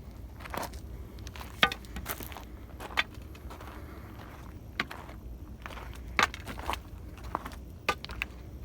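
Footsteps of a hiker coming down a rocky mountain trail: irregular crunching steps, roughly one a second, over a steady low rumble.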